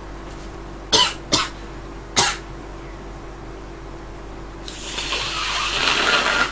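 A woman coughs three times in quick short bursts, then blows her nose hard into a tissue for about two seconds, a long airy hiss that gets louder and stops abruptly.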